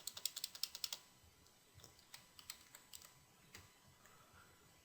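Faint typing on a computer keyboard: a quick run of about ten keystrokes in the first second, then a few scattered clicks.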